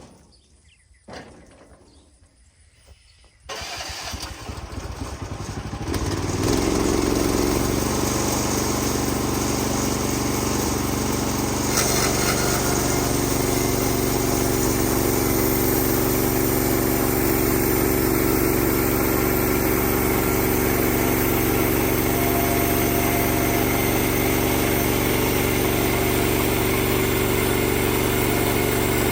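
Kohler engine of a Woodland Mills HM130 Max sawmill starting a few seconds in, picking up speed over the next few seconds and then running steadily. A couple of sharp knocks come before it starts.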